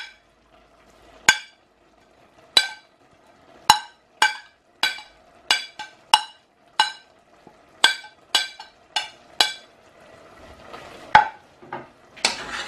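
About a dozen sharp ringing clinks, a bowl and utensil tapped against the rim of a stainless-steel stew pot to knock chopped parsley and garlic off into it, coming a little quicker in the middle. Fainter noise and one more clink follow near the end.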